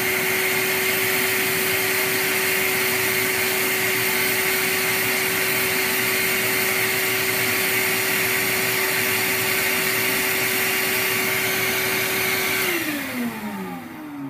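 BKM 4 reed profiling machine running as it cuts the back of a cane clarinet reed: a steady motor hum with a strong hiss over it, which winds down with a falling pitch about a second and a half before the end.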